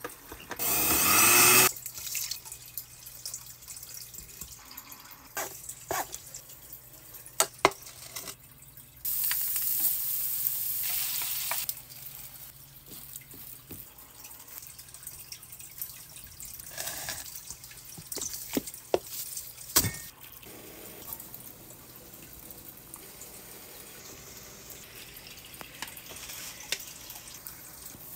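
Kitchen tap running into a sink in two spells, about a second near the start and about three seconds around the middle, with scattered sharp knocks and taps between them.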